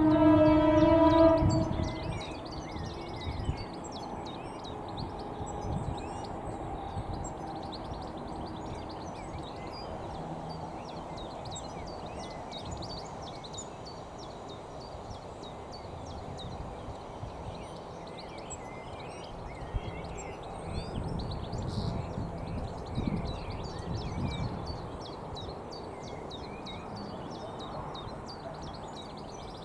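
European goldfinches twittering in many short, high chirps over steady outdoor background noise. A loud horn-like tone sounds for about two seconds at the start.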